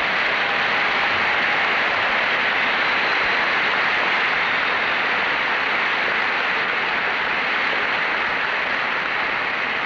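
Audience applauding: a long, steady round of clapping that begins to die down near the end.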